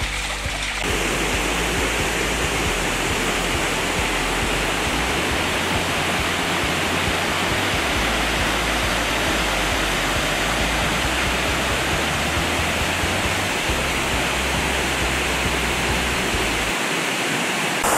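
Steady rush of a swollen creek's water pouring over rocks, starting abruptly about a second in.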